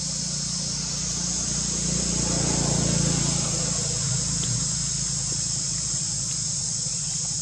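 Steady, high-pitched insect chorus from the surrounding forest, with a low hum underneath that swells and fades around the middle.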